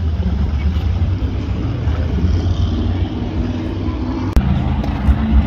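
Four outboard motors on a center-console powerboat running at low, no-wake speed, a deep steady rumble. A brief dropout with a sharp click comes a little over four seconds in.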